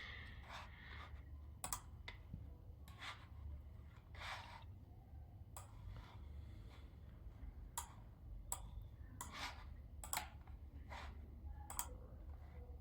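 Faint, irregular clicks and short scraping strokes, about a dozen spread out, over a low steady hum.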